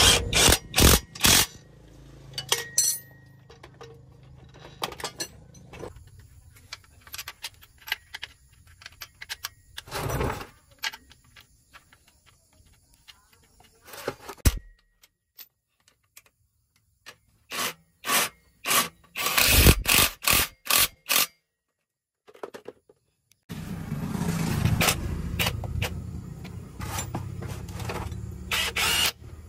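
Metal hand tools clinking, knocking and scraping in irregular sharp clicks, with a pause of several seconds after the middle; near the end a steady low rumble comes in.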